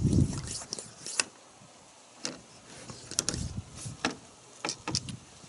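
Hand vacuum pump of an oil-sampling kit being worked, giving a sharp click with each stroke about once a second. It is pulling a vacuum to draw engine oil up a line from the dipstick tube into the sample bottle.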